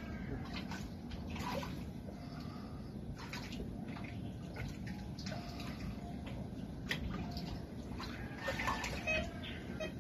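Muddy water sloshing and splashing as someone wades in it and sweeps a metal detector's coil through it.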